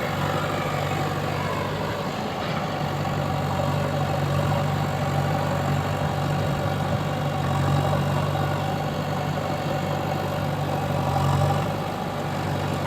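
A diesel engine idling steadily at low speed.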